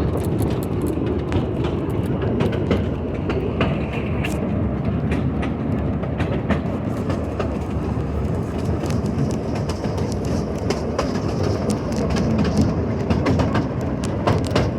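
A ride train rolling along, making a steady rumble with frequent, irregular clacks from the wheels.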